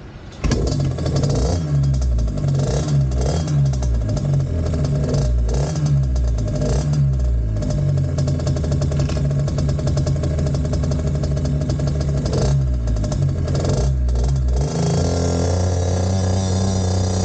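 A 50cc two-stroke automatic mini trail bike engine being revved in repeated throttle blips, its pitch rising and falling, then held at a steady higher speed for the last couple of seconds.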